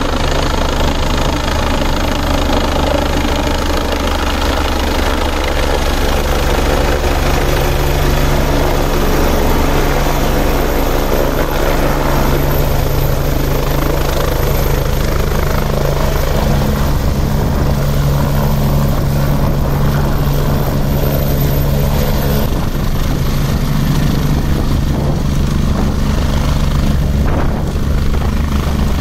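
Agusta A109-type twin-engine helicopter, its rotor and turbines running as it comes in low and hovers over a helipad to land: a loud, steady drone with a constant low hum.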